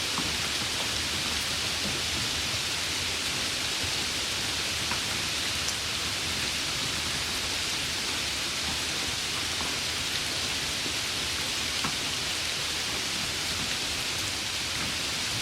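Steady rain falling, an even hiss with the odd faint drop tick standing out.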